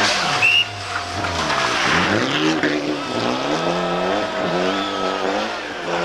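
Mitsubishi Lancer Evolution rally car's turbocharged four-cylinder engine revving up and down over and over while the car spins donuts, tyres squealing.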